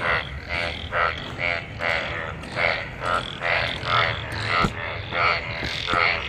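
A breeding chorus of frogs after monsoon rain: short, pulsed croaks repeating about twice a second, several frogs calling over one another.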